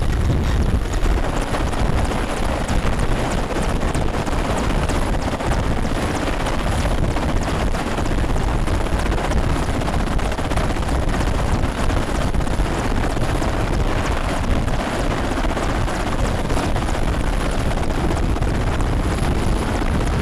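Mil Mi-17 helicopter running on the ground with its main rotor turning: the loud, steady noise of its twin turboshaft engines and rotor, with a thin, steady high whine over it.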